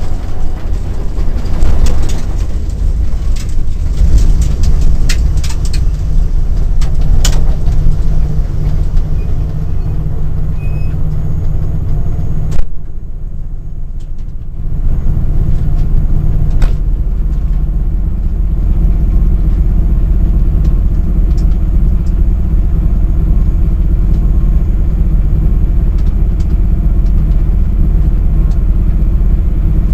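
Subaru Impreza rally car's engine idling steadily, heard from inside the cabin, with a few sharp clicks and rattles in the first several seconds. After a loud click about halfway through, the sound dips for a couple of seconds, then the steady idle carries on.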